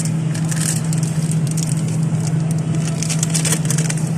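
Plastic bags crinkling and rustling as bagged chicken is handled and set into a freezer compartment, over a steady low hum.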